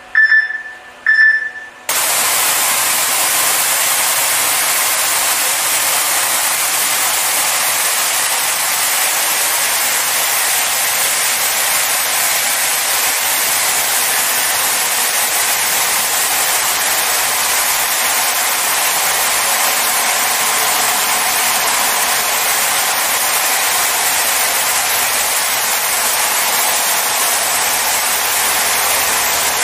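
Two short beeps, then about two seconds in the high-pressure water jets of a touchless automatic car wash come on suddenly. They keep up a loud, steady hiss of spray against the car.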